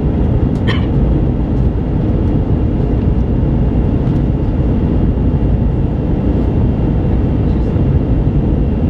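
Steady cabin noise of an Airbus A320-232 in descent, heard from a window seat beside the wing: a deep, even rush of airflow and its IAE V2500 engine, with a faint steady high whine. A brief sharp squeak comes about a second in.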